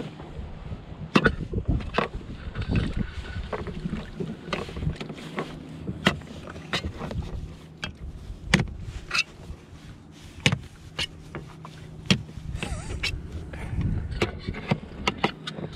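Small rowboat on choppy water: water slapping and lapping against the hull under a low rumble, with many irregular sharp knocks and clunks of gear and oars against the boat.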